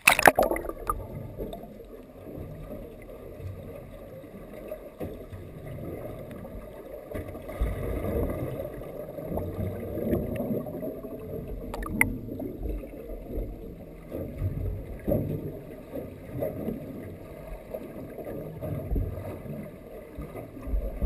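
Muffled underwater water noise heard through an action camera's waterproof housing: a splash as the camera dips below the surface at the start, then a continuous low, uneven sloshing rumble. There is a single sharp click about halfway through.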